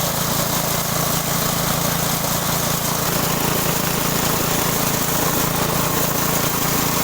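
Multi-function forage chopper (hammer mill) running steadily under its drive engine, its rotary hammers chopping stalks with a constant loud whirring noise.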